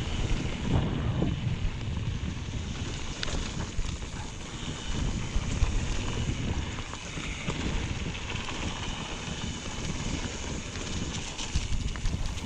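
Wind buffeting the microphone and tyres rolling on a dirt trail as a mountain bike descends at speed, with scattered short rattles and knocks from the bike over bumps.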